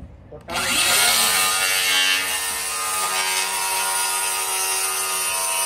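Cordless circular saw starting up about half a second in, its pitch rising briefly, then cutting through OSB roof sheathing: a steady whine of the motor under the hiss of the blade in the board.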